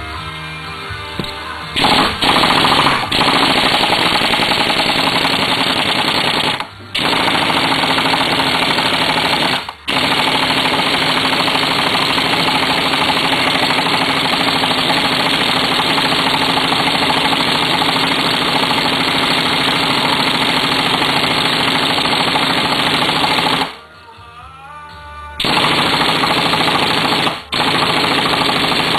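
Air impact wrench hammering at the drive sprocket nut of a Suzuki Hayabusa's output shaft, in long bursts with the trigger let off briefly a few times.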